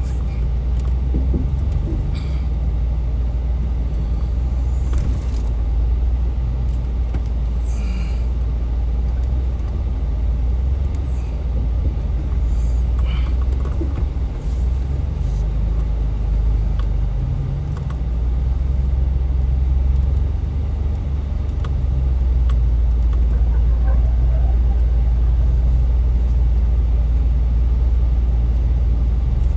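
Off-road vehicle driving on the trail: a steady low rumble that swells and eases a little, with a few faint knocks.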